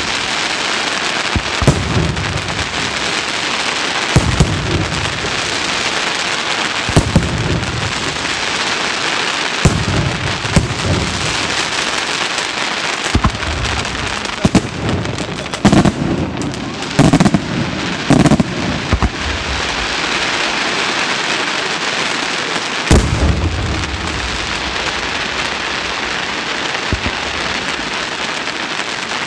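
Aerial firework shells bursting in a steady barrage, a deep boom every one to three seconds, over a continuous dense crackle from glittering and strobing stars. The booms come thickest and loudest about two-thirds of the way through.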